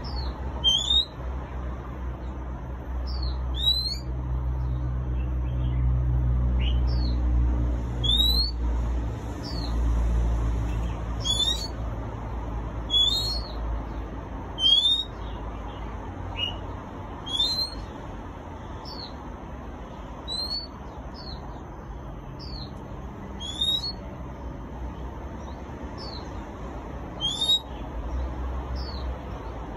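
Caged oriental magpie-robin singing: short, rising whistled notes, one every second or two. A low rumble runs underneath, strongest in the first third.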